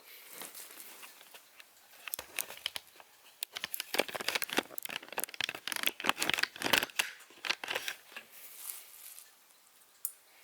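Packaging crinkling and rustling as it is handled, in irregular crackles that build about two seconds in, are busiest in the middle and die away near the end.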